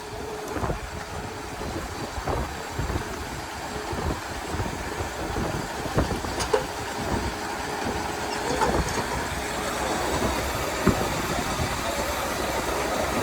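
Steam traction engine running under belt load, its steady thumping beat carrying a few sharp metallic clicks.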